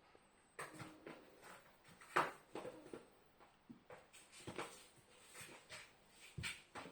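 A pet sneezing and moving about: a series of short, sharp sounds, the loudest about two seconds in.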